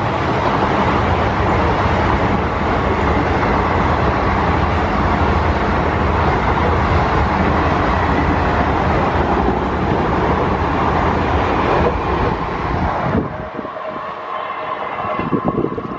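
A train running by at close range: a loud, steady rumble and rush that drops off sharply about thirteen seconds in, leaving a quieter, thinner noise.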